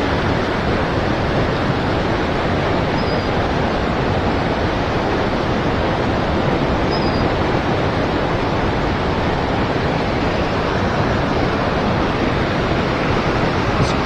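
Steady rush of river water running through shallow rapids, an even, unbroken noise, with a few faint high chirps over it.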